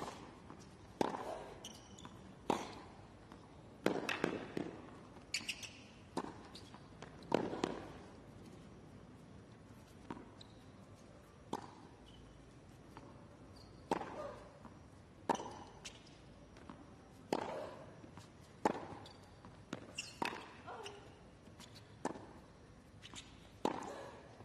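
A long tennis rally on a hard court: sharp pops of the ball off the racquet strings, with lighter ball bounces between them, about one stroke every second or so. There is a short pause of a couple of seconds near the middle.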